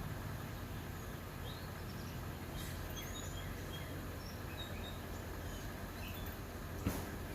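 Small birds chirping in many short, high notes over a steady low background rumble, with one sharp click near the end.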